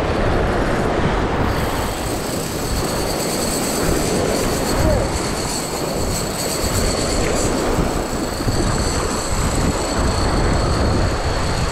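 Surf washing over the rocks with wind on the microphone. From about a second and a half in until past eight seconds, a high, steady squeal from the spinning reel's drag as a hooked amberjack takes line.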